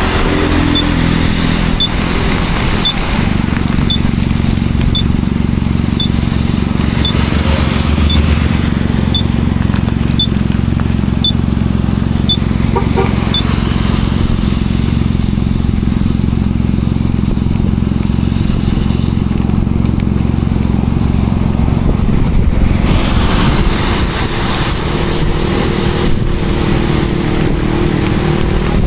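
Motorbike engine idling steadily. A short, high beep repeats about once a second through the first half and then stops. Near the end a higher engine note joins in.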